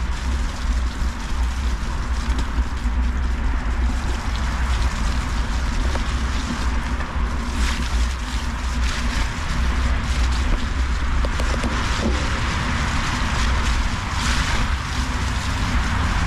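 Wind rushing over the microphone and mountain bike tyres rolling over a muddy trail, a steady rumble and hiss with occasional rattles and knocks from the bike.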